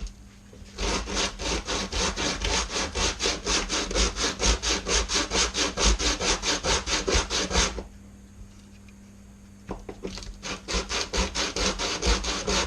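Sandpaper on a sanding block rubbed hard on wood in quick back-and-forth strokes, smoothing a routered notch that was cut too shallow. The strokes stop for about two seconds past the middle, then start again.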